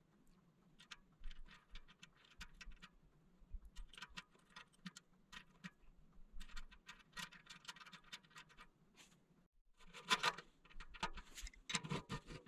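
Light metallic clicks and clinks of a SRAM 10-speed 11-32 bicycle cassette's steel cogs and spacers being slid by hand onto a rear wheel's freehub, in irregular clusters of small ticks, louder in the last few seconds.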